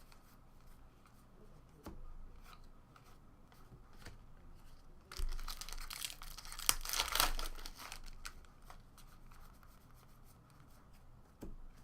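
Trading card pack wrapper being torn open and crinkled, with the cards clicking and sliding against each other as they are handled; the tearing and crinkling is loudest in a stretch about halfway through.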